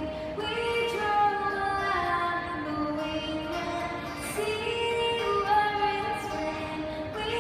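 A young woman singing a slow melody, holding long notes that slide between pitches, with short breaths between phrases.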